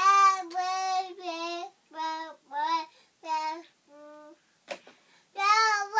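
A one-year-old baby singing without words: a run of drawn-out, high vowel notes, each under a second, with the pitch wandering up and down. There is a short pause near the middle and a louder note near the end.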